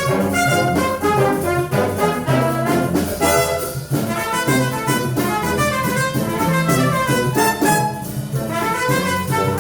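Brass and woodwind band playing an ensemble arrangement, several instruments sounding together in harmony with notes changing in quick succession.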